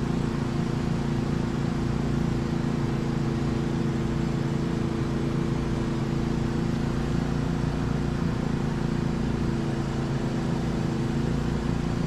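Cummins 4500 portable generator running steadily under heavy load, near its rated output, as a constant engine hum with a low rumble.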